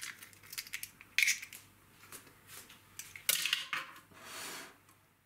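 A chicken egg cracked against a glass mixing bowl and its shell broken open: a few sharp clicks and crunches spread over several seconds, then a brief soft rustle near the end.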